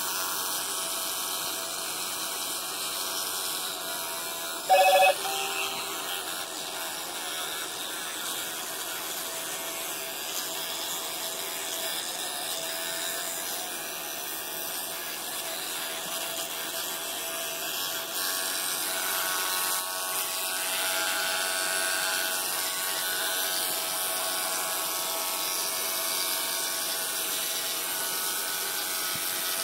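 Electric toothbrush buzzing steadily, with one short, loud beep a few seconds in.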